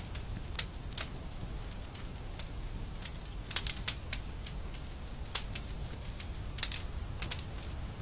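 Wood fire crackling: irregular sharp pops and snaps over a low steady rumble, with a few louder snaps about three and a half and six and a half seconds in.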